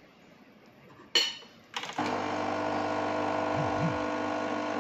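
Home espresso machine's pump pulling a shot: a click about a second in, then the pump starts and hums steadily with an even buzzing drone.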